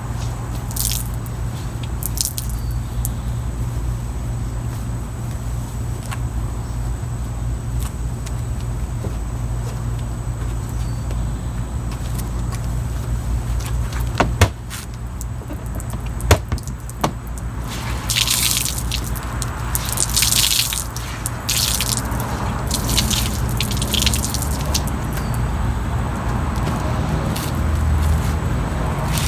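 A steady low hum that drops off about halfway through, a few sharp clicks, then repeated bursts of water splashing and dripping in the portable washing machine's tub as wet clothes are handled.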